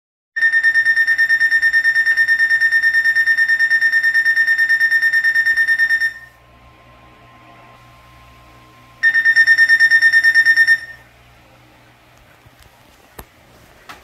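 Eton weather alert radio sounding its alarm for a received warning: a loud, rapidly pulsing high-pitched beep for about six seconds, then a faint steady lower tone for about three seconds, then the pulsing beep again for about two seconds before it stops.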